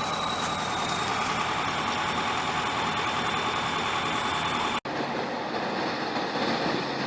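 Heavy vehicle engine running steadily, with a thin high tone that slowly falls in pitch. About five seconds in it cuts off abruptly, and another vehicle engine's lower steady hum takes over.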